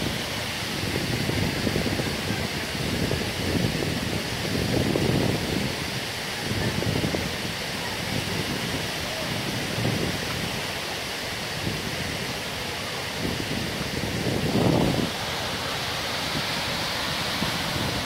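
Steady rush of flowing creek water and a nearby waterfall, with irregular low gusts of wind buffeting the microphone, the strongest a little before the end.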